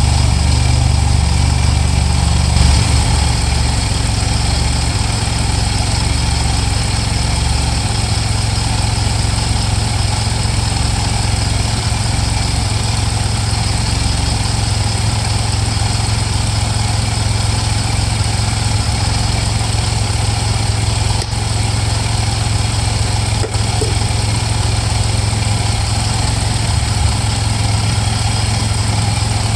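2005 Pontiac Grand Prix CompG's supercharged 3800 V6 idling steadily, running so that the automatic transmission fluid level can be checked. Two short clicks come about two seconds apart past the middle.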